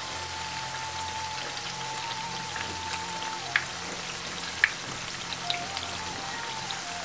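Battered potato slices sizzling in hot oil in a frying pan: a steady crackling hiss with sharp pops of spattering oil, the loudest about three and a half and four and a half seconds in.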